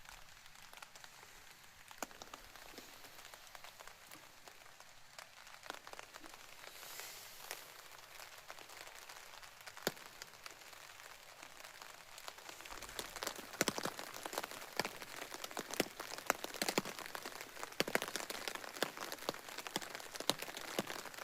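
Rain falling on a surface, with many separate sharp drop hits; it grows heavier and louder about two-thirds of the way through.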